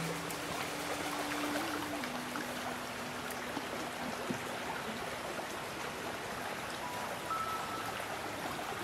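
Shallow stream running over stones: a steady rush of water. Soft music sits under it, a low held note that steps down and fades out about halfway, and a few faint higher notes near the end.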